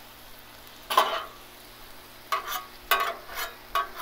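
Metal spatulas scraping and pushing sliced steak, peppers and onions across a hot Blackstone steel flat-top griddle, over a low sizzle of frying. One scrape comes about a second in, then four or five quick scrapes close together near the end.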